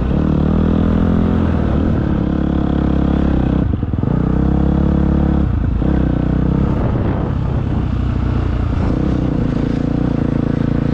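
Motocross bike engine heard close up from the rider's helmet, running hard with the revs rising and falling and brief throttle cuts about four and five and a half seconds in.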